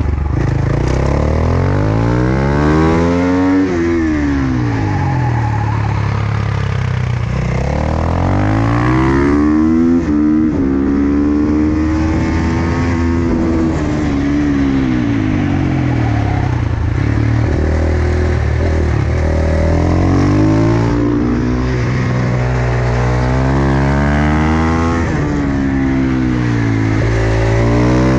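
Single-cylinder supermoto motorcycle engine, heard from an onboard camera while riding a circuit. The engine revs up hard and drops back several times, rising through the gears on the straights and falling off into the corners.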